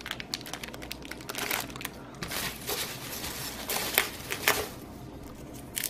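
Plastic zip bag of small radio parts crinkling in the hands, then hands rummaging through polystyrene packing peanuts in a cardboard box: irregular rustling and crinkling with a few louder crackles about two and a half and four seconds in.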